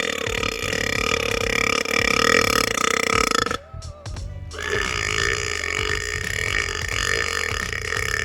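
A person burping hugely: one long, drawn-out burp that cuts off about three and a half seconds in, then after a short pause a second long burp.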